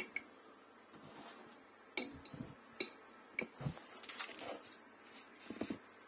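A fork clinking and scraping against a glass bowl and a plate during a meal, with a few sharp clinks about two to three and a half seconds in and softer handling noises between them.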